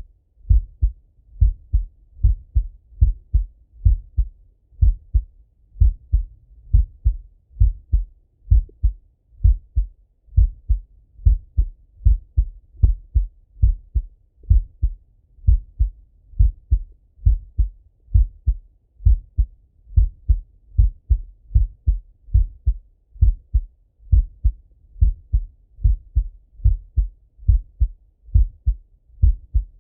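A man's heartbeat heard through a Littmann stethoscope chest piece: a steady, even rhythm of low, muffled lub-dub beats.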